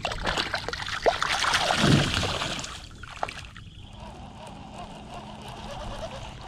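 Water splashing as a largemouth bass is let go by hand in shallow water and kicks away, loudest about two seconds in and dying down after about three seconds.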